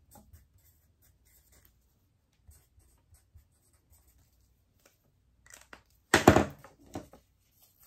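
Small plastic bags of diamond-painting beads and their sticker labels being handled while being labeled: faint light clicks and rustles, then a short, louder rustle about six seconds in and a smaller one right after.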